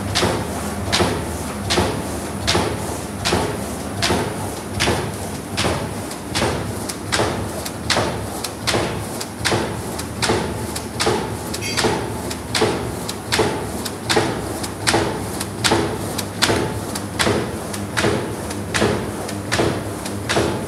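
Triplex-row paper cup die-cutting machine running, its die punching with a sharp clack about every three quarters of a second over the steady hum of its drive.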